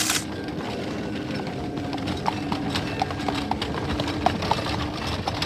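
Horse hooves clopping in an irregular, uneven stream of short clicks over a low steady hum, like the sound of street traffic.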